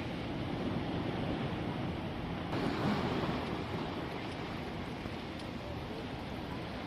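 Sea surf washing in steadily, with wind buffeting the microphone; a wave surges louder about two and a half seconds in.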